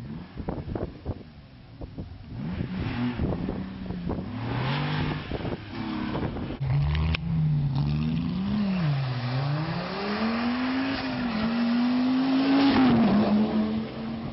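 Rally car engine approaching and passing close by, its revs climbing and dropping repeatedly through gear changes and lifts, loudest just before the end. A sharp pop comes about seven seconds in, and crackles are heard in the first couple of seconds.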